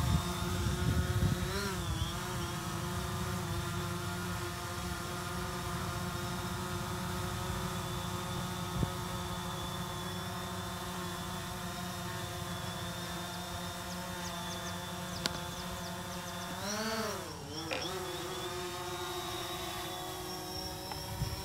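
DJI Phantom 3 quadcopter's motors and propellers hovering close by: a steady whine of several tones at once. The pitch wavers briefly about two seconds in, and swings down and back up about three quarters of the way through as the drone starts to move off.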